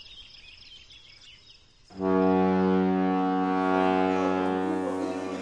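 Faint crickets chirping, then about two seconds in a loud, steady low horn tone starts suddenly and holds, fading slightly toward the end.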